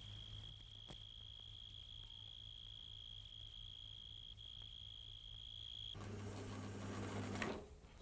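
A night insect's steady high-pitched trill over a faint low hum. About six seconds in it cuts off, and the whirring run of a film-editing machine takes over, with a low hum.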